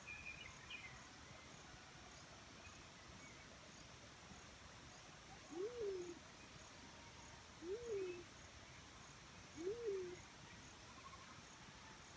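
Black-chinned fruit dove giving three low hoots about two seconds apart, each rising then falling, starting about five seconds in. A brief higher chirp from another bird near the start, and faint regular insect chirping behind.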